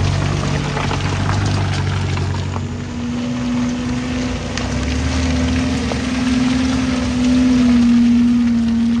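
Off-road 4x4 engine running hard under load in a mud bog, with a rough hiss and wash of mud and water. Its note steps up about three seconds in and holds, loudest near the end.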